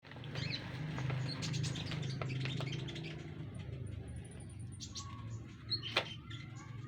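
A konin songbird chattering in full song: rapid short chirps and clicks with some thin, very high notes, and one sharper loud click near the end. A steady low hum runs underneath.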